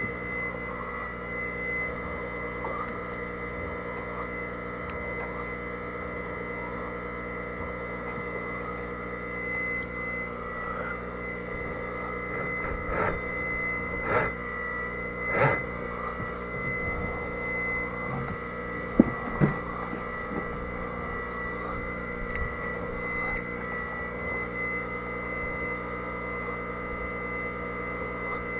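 A steady electrical hum, with a few short knocks partway through and two sharp clicks near the two-thirds mark, as of tools and saw parts being handled.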